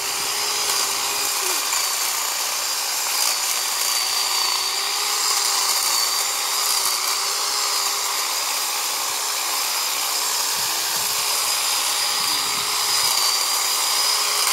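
Black & Decker 16-inch corded electric hedge trimmer running steadily at one even pitch as its blades cut through brush.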